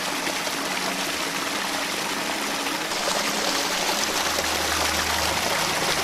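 A small creek running and splashing over granite boulders, spilling through a narrow gap into foaming white water; a steady rush of water that grows a little louder about halfway through.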